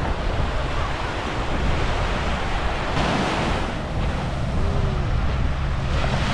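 Small sea waves breaking and washing up a sandy beach, with wind rumbling on the microphone; the wash swells louder about three seconds in and again near the end.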